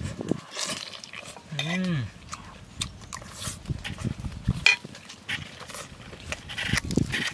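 Close-up eating sounds: roasted duck meat being pulled apart by hand and chewed, with wet mouth clicks and smacks throughout. About two seconds in there is a short hummed note that rises and falls.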